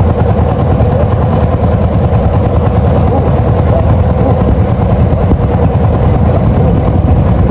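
An engine running steadily and loudly, with a constant drone and no change in speed.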